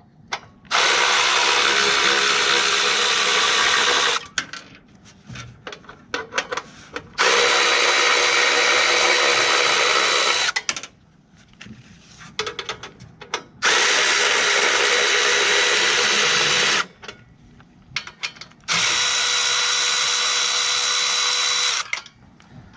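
Milwaukee M12 Fuel 3/8-inch brushless cordless ratchet running in four runs of about three seconds each as it spins out screws, each run at a steady pitch. Short clicks and handling clatter come between the runs.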